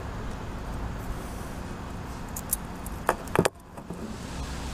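Metal parts handled on a table: two sharp clinks about three seconds in as the steering box's worm gear and shaft are stood upright. A steady low outdoor background hum runs underneath.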